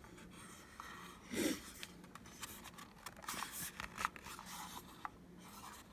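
Light clicks, taps and scrapes of small plastic and metal parts being handled and turned over, in an irregular scatter.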